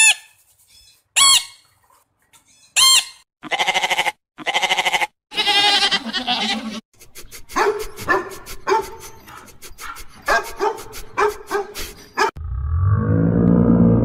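A cockatoo screeches three times, sharp and high, followed by several longer pulsing calls. A dog then barks rapidly for several seconds. Near the end, after a sudden cut, a dinosaur model gives a low, drawn-out roar.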